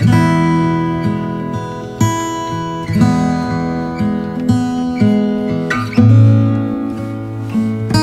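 Background music: a plucked acoustic-guitar tune, with new notes or chords coming in about once a second.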